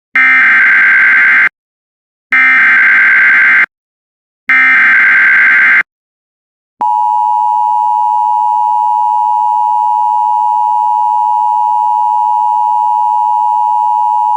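Emergency Alert System header: three short screeching data bursts of encoded digital tones, a second or so apart, which carry the alert's coded information. About seven seconds in, the steady two-tone EAS attention signal begins and holds.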